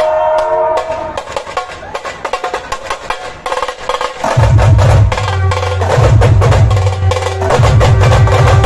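Dhol-tasha drumming. A held tone breaks off just under a second in, then tasha drums play rapid, sharp strokes, and about four seconds in the big dhol drums come in with loud, deep beats under them.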